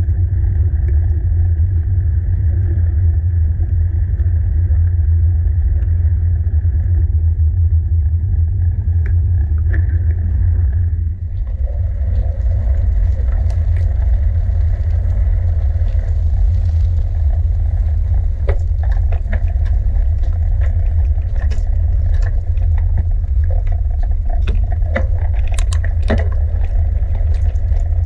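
Steady low rumble of wind and road noise from a bicycle being ridden. About eleven seconds in the sound changes, and frequent sharp clicks and rattles follow.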